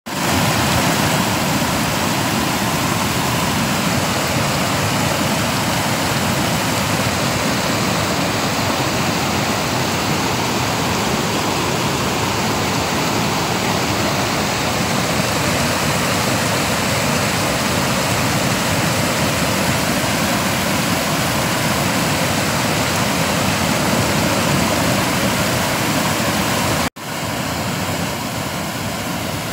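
Flooded river rushing steadily over a washed-out dirt road, with a brief gap near the end.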